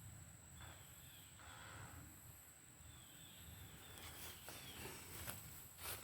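Near silence in woodland: a faint steady high insect buzz, a few faint descending bird calls, and a few soft footstep crunches on leaf litter near the end.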